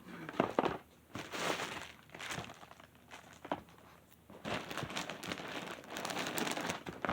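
Packaging being handled and crinkled in rustling bursts, with a few sharp clicks.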